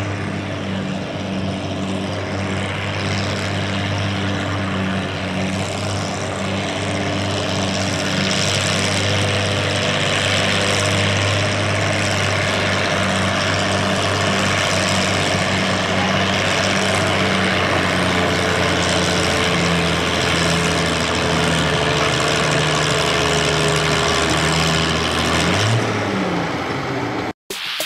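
Tractor engine running steadily at low speed, its tone shifting slightly partway through; the sound cuts off abruptly near the end.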